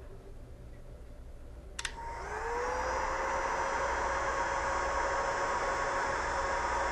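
Heat gun switched on with a click about two seconds in, its fan whine rising as the motor spins up, then running steadily with a blowing rush of air.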